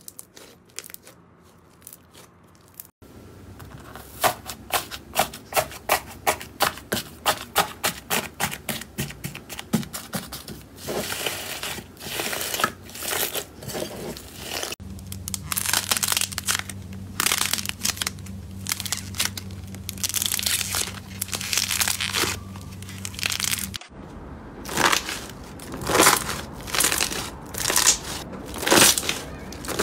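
Slime worked by hand close to the microphone: a run of sharp crackling and crunching pops, in several short clips one after another.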